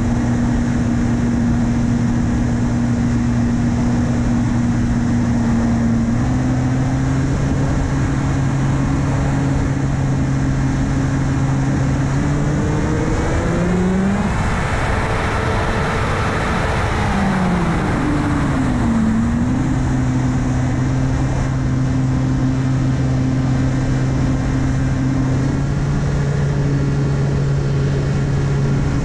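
Electric motor and 8x6 propeller of an S800 FPV plane, heard through its onboard camera with wind rushing over the microphone: a steady low drone that steps up slightly about six seconds in. Midway the pitch swings up and back down along with a swell of wind noise, then settles again.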